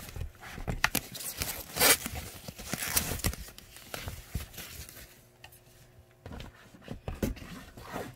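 Plastic foam packing wrap being handled and pulled off by hand, rustling and crinkling in irregular bursts, with a few louder tearing rustles about two and three seconds in.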